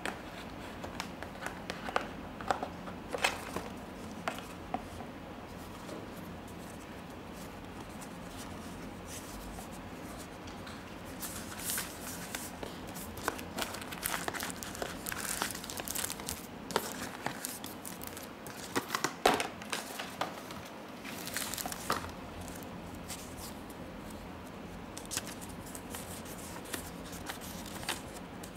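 Cardboard packaging inserts and a folded paper leaflet handled by hand: intermittent rustling, crinkling and light clicks, busiest through the middle stretch.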